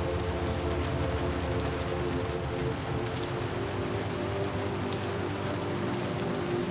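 Steady rain falling, with scattered drops ticking through an even hiss, over a faint steady low hum.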